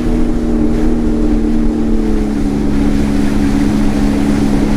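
Sea-Doo personal watercraft engine running steadily underway, with water rushing past the hull. Its pitch dips slightly in the first couple of seconds, then holds.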